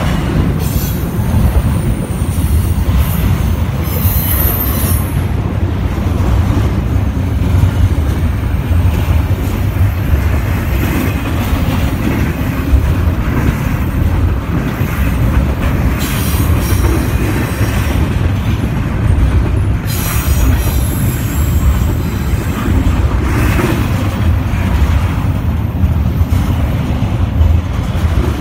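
Double-stack intermodal freight train's container-laden well cars rolling past at speed: a steady, loud rumble of steel wheels on rail, with short high-pitched bursts several times.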